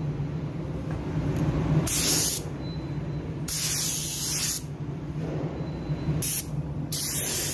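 Compressed-air paint spray gun hissing in several short passes, laying clear 1K plastic primer (adhesion promoter) onto a plastic bumper part, over a steady low hum.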